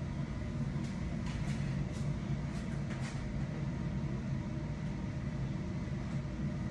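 Steady low machine hum, with a few faint clicks and knocks over it.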